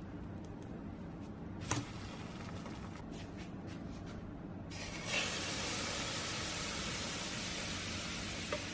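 A sharp knock about two seconds in. About five seconds in, a sudden, steady sizzle starts as canned tuna and its oil go into a hot frying pan. A small tap comes near the end.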